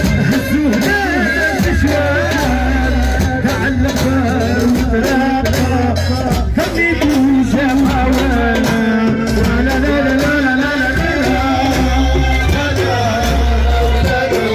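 Live amplified Tunisian wedding music: a man sings into a microphone over a loud backing with held bass notes and a steady beat.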